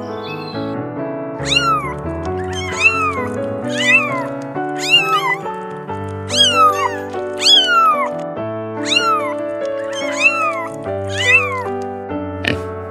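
A cat meowing over and over, about ten meows roughly a second apart, each rising briefly and then falling in pitch, over background music with held notes.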